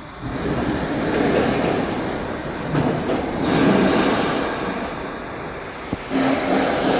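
Heavy machinery running with a rumble and metal clatter that swell and ease. A sharp knock comes near the end, followed by a steady hum.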